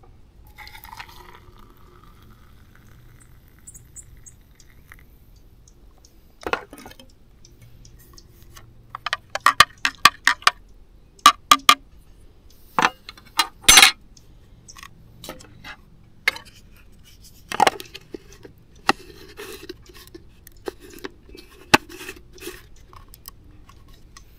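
Coffee is poured briefly from a camp-stove pot into a camp mug. A metal spoon then stirs it, clinking against the sides of the mug in a quick run of ringing strikes, loudest about two-thirds of the way through. Scattered knocks follow as the mug and its lid are handled on the table.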